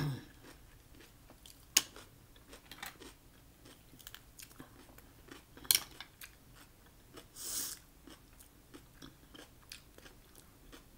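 Eating cooked mussels: scattered sharp clicks of mussel shells being handled and pried apart, and wet chewing. There are two louder clicks, about two seconds and six seconds in, and a short hiss about seven and a half seconds in.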